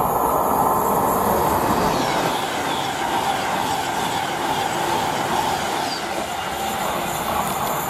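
Train passing on the main line: a steady, loud rush and rumble of wheels on rail, with some high wheel squeal mixed in, slowly easing towards the end.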